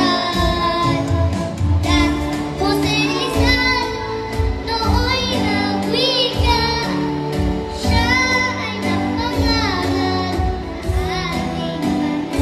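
A young girl singing a song into a handheld microphone over instrumental backing music, amplified through a PA sound system.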